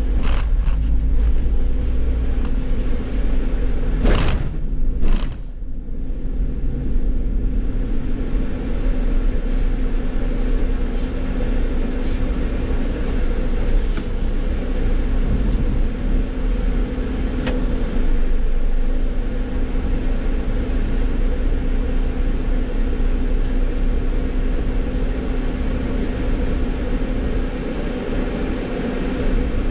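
Irisbus Cityclass city bus's Iveco Cursor natural-gas engine running steadily, heard from the driver's seat as the bus slows and then idles at a stop. Two short hisses of air about four and five seconds in.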